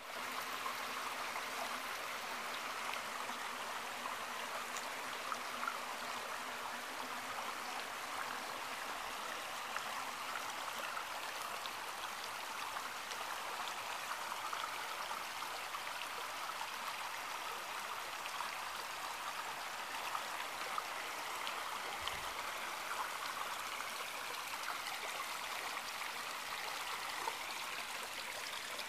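Brook running: a steady, even rush of flowing water.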